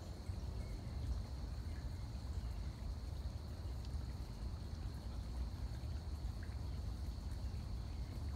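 Stream-side ambience: faint trickling water over a steady low rumble on the phone's microphone, with a thin, steady high hum throughout.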